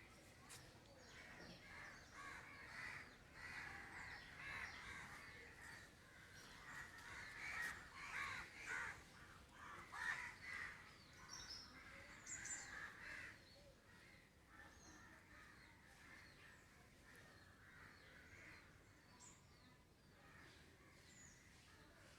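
Faint bird calls, most of them in the middle of the stretch, with a few higher chirps.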